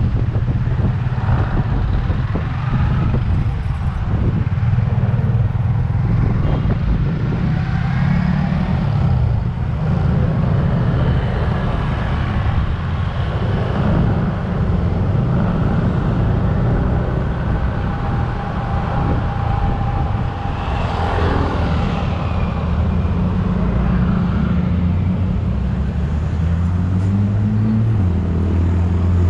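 Motorcycle engine running while riding in traffic, with wind buffeting the microphone; the engine pitch rises in steps near the end as it accelerates.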